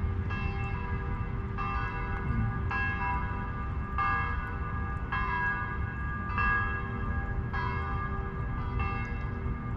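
Bells ringing in a steady series of strikes, about one every 1.2 seconds, each ringing on into the next, over a low steady rumble.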